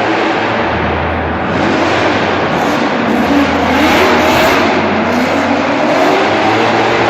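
A drift car's engine revving hard over a dense, steady roar. Its pitch climbs in rising runs through the middle of the stretch.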